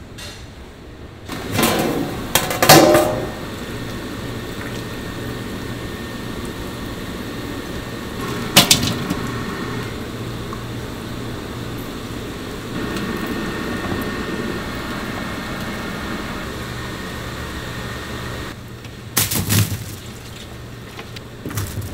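Metal kitchen clatter: a mesh strainer and large steel bowls knocking and scraping while braised pig's trotters are handled. There is a loud burst of clatter about two seconds in, one sharp knock near the middle and more knocks near the end, over a steady background hum.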